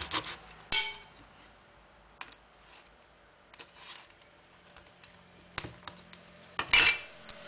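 A steel cleaver chopping through a raw crab's shell onto a wooden cutting board: one loud chop about a second in and another near the end, each with a brief metallic ring, with a few light taps and knocks between.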